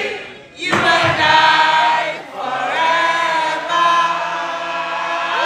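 Many voices singing together in long held notes, a concert crowd singing along with the band, with little drumming or bass behind it. The singing drops away briefly about half a second in, then comes back in full.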